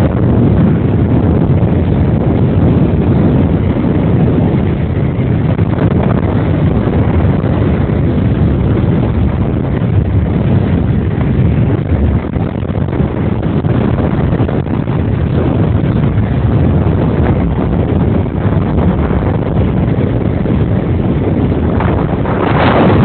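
Wind rushing over a phone microphone, with road and engine noise from a moving vehicle: a loud, steady noise, with a brief louder whoosh near the end.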